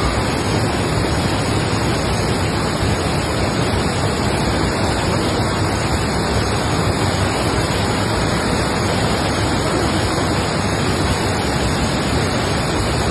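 Loud, steady rushing of water, an unbroken roar with no distinct events.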